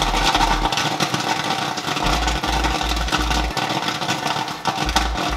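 Popcorn kernels popping in quick, dense succession in the 12 oz kettle of a Great Northern commercial-style popcorn machine, over the steady hum of the kettle's stirring motor. The batch is at full popping.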